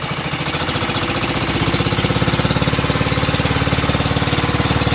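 Small engine running with a fast, even chug, getting louder about a second and a half in.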